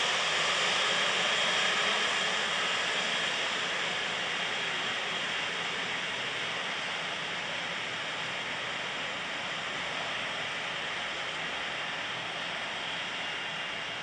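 Turbofan engines of a twin-engine business jet running at taxi power: a steady hiss with a faint high whine, easing slightly after about two seconds.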